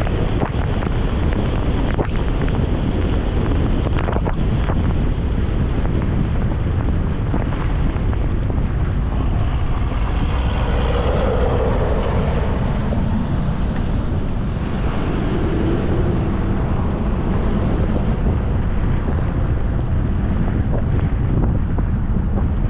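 Wind buffeting the microphone in a steady low rumble over highway traffic. A vehicle, likely a plow truck, swells past about ten to thirteen seconds in.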